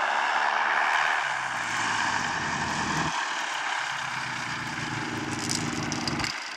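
Four-stroke engine and propeller of a weight-shift microlight trike, about 75 hp, running as the trike comes in low and lands on grass. The engine note breaks off abruptly about three seconds in and again near the end.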